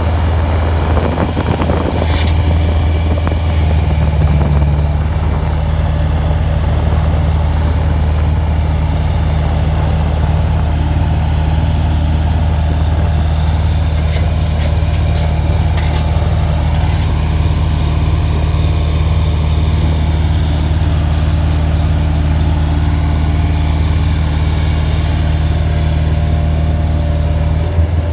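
An engine running steadily, a loud low hum that holds even throughout, with a slight change in tone about four and a half seconds in and a few faint clicks.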